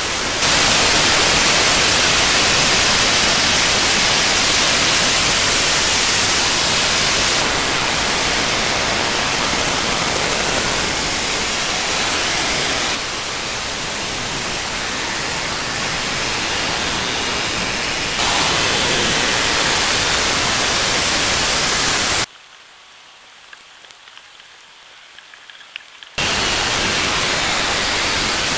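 Outdoor field audio played back eight times fast, heard as a dense, steady hiss. Its level jumps at each cut between recordings. For a few seconds near the end it falls to a much fainter hiss with a few faint ticks, then returns.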